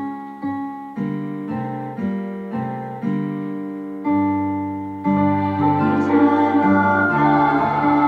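Instrumental music: keyboard chords struck about twice a second, each fading away. About five seconds in, the sound fills out into fuller, held chords.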